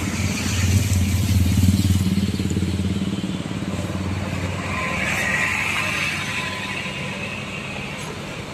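Tour bus engine rumbling past in street traffic, loudest one to two seconds in and then easing off, with a brief hiss about five seconds in.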